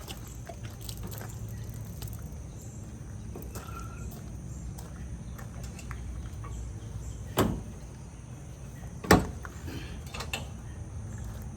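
Two loud knocks, one about seven seconds in and a louder one under two seconds later, over a steady low rumble.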